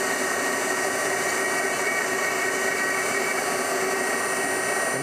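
Handheld rotary tool running steadily at high speed, its bit working the part, with a constant whine.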